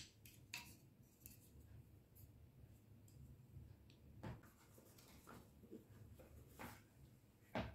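Faint handling of a plastic GoPro mini extension pole with fold-out tripod legs: scattered light clicks, and a tap about four seconds in as it is set down on a glass tabletop. A sharper click comes near the end.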